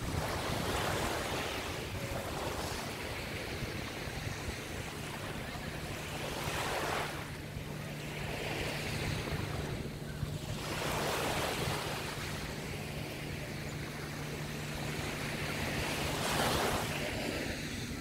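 Small waves breaking and washing up a sandy beach: a steady wash of surf that swells several times as each wave runs in.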